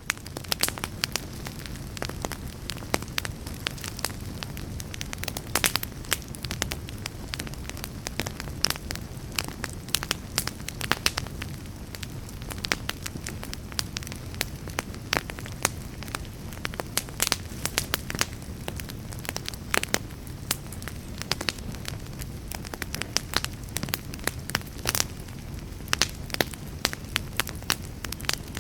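Wood fire burning in a fireplace, crackling with frequent sharp, irregular pops and snaps over a steady low rush of flames.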